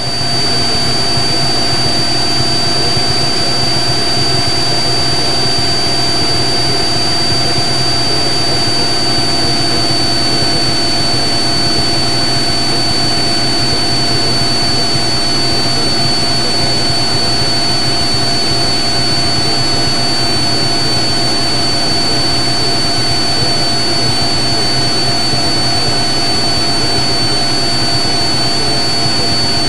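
Turbocharged six-cylinder Lycoming 540 engine and propeller of a Cessna T182T Skylane heard inside the cabin, a loud steady drone at cruise power, with a steady high-pitched tone over it.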